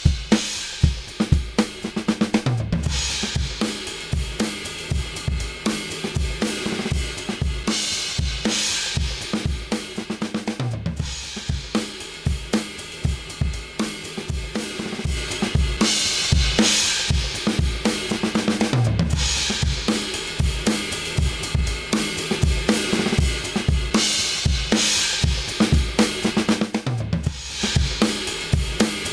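Drum kit playing a repeating groove of kick, snare and hi-hat, with cymbal crashes several times. It is the demo track for a 1176-style FET compressor plugin.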